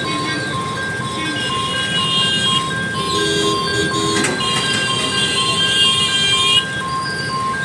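Level-crossing warning alarm beeping in two alternating electronic tones, evenly a few times a second, over road traffic. Long high-pitched vehicle horn blasts sound twice over it, the second running from about three and a half to six and a half seconds in.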